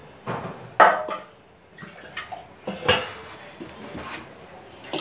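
A wooden stirrer working thinned dal in an aluminium pressure cooker, knocking and scraping against the pot's sides. The loudest knocks come just under a second in and again about three seconds in.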